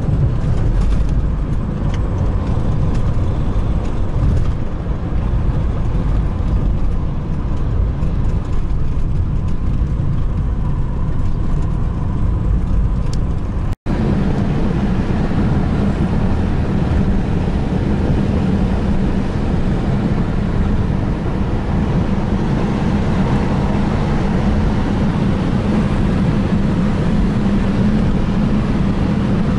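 Steady car cabin noise while driving: engine and tyre rumble on the road. It cuts out for an instant about 14 seconds in, and after that a steadier low hum is stronger.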